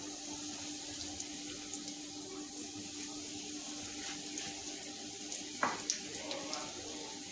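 Breadcrumb-coated bread rolls sizzling as they shallow-fry in hot oil in a frying pan: a steady crackling hiss. There is a faint steady hum underneath and one brief knock about five and a half seconds in.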